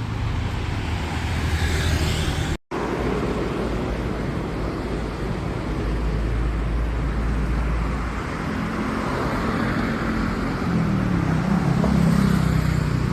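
Street traffic: steady road noise with passing vehicle engines, one engine growing louder near the end. The sound drops out for an instant about two and a half seconds in.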